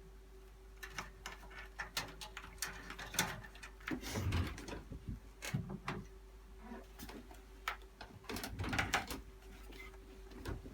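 Irregular clicks, taps and a few heavier knocks and rattles of computer parts and cables being handled and fitted inside a metal PC case.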